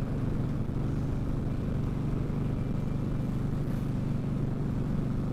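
Indian Scout Sixty V-twin engine running at a steady cruising speed, heard from the rider's helmet mic together with wind rush. The engine note holds even, with no revving or gear changes.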